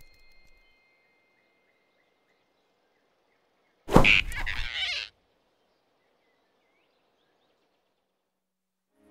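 Near silence, broken about four seconds in by a sudden loud whoosh lasting about a second: an animated-film sound effect of the giant rabbit snatching the flying squirrel in his fist.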